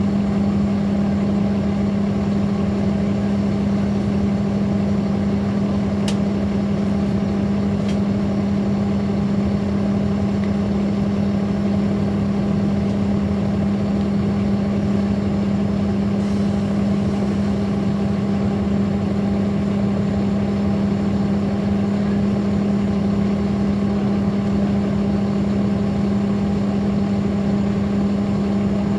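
Caterpillar C13 ACERT inline-six diesel of a NABI 416.15 transit bus running with a loud, steady drone that holds one pitch throughout, heard from on board the bus.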